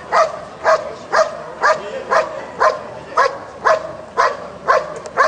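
German Shepherd barking steadily and rhythmically, about two barks a second, at a helper standing in the blind: the hold-and-bark (revier) exercise of IPO protection work.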